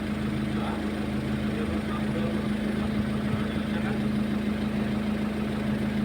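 Excavator's diesel engine running steadily at a constant speed, a continuous low hum.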